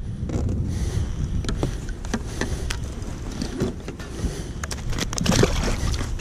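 Wind rumbling on the microphone, with scattered clicks and knocks, thickest about five seconds in.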